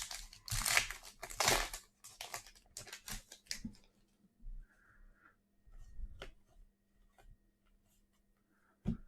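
A trading-card pack's plastic wrapper being torn open and crinkled, in loud rustling bursts over the first few seconds, then quieter scattered clicks and taps as the cards are handled.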